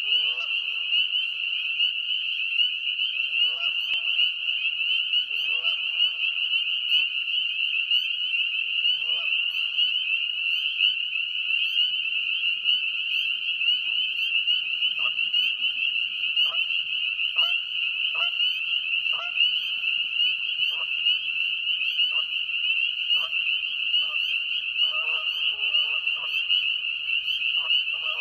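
A dense, unbroken chorus of spring peepers, many high peeps overlapping. Lower calls from geese on the pond come and go, a few drawn-out calls in the first ten seconds, then short repeated calls about once a second in the second half.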